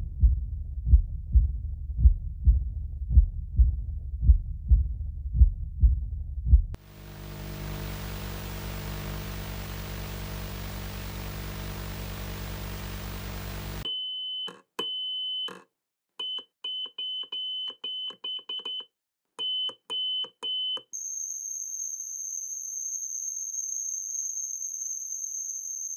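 A series of simulated tinnitus sounds. First a pulsatile, heartbeat-like thumping at about one and a half beats a second, then a low steady buzzing hum. About halfway through come short, broken high beeps with silent gaps, and for the last few seconds a steady high-pitched ringing tone.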